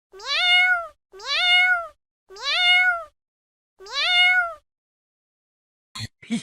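A cat meowing four times in a steady rhythm. Each meow rises in pitch and then holds, with all four almost identical. A short sharp click comes near the end.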